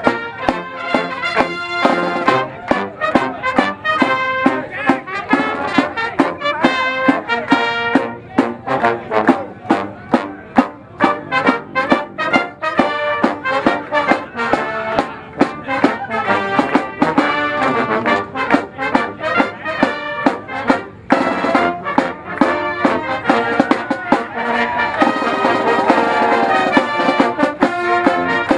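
Brass marching band of trumpets, trombones and sousaphones playing together in a steady, strongly accented rhythm.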